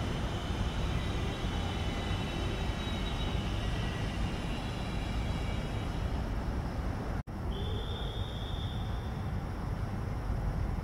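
FS E.444R electric locomotive drawing into the station: a steady low rumble with faint high whining tones. About seven seconds in the sound cuts out for an instant, and a short, steady high tone follows for under two seconds.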